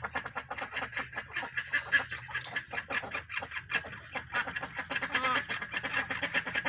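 Domestic ducks quacking in a fast, continuous run of short calls while a pair is mating.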